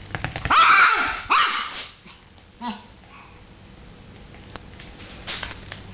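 Papillon barking: two loud barks in the first two seconds, then a few quieter barks further on.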